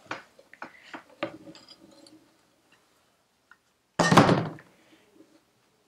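Large adjustable spanner working the spindle nut on a motorcycle rear wheel: a few light metallic clicks and scrapes, then one loud thunk about four seconds in.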